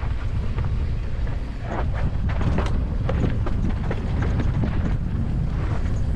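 Mountain bike descending a dry, dusty dirt trail at speed: wind buffets the helmet camera's microphone in a steady low rumble, over tyres crunching on loose dirt and short clicks and rattles from the bike over bumps, most of them in the middle of the stretch.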